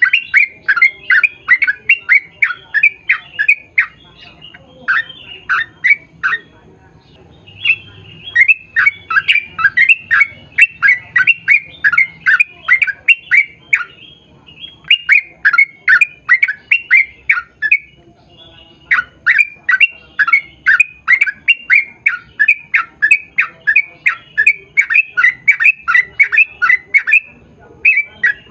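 Yellow-vented bulbul singing long runs of quick, sharp chattering notes, about four a second. The runs break off a few times in short pauses.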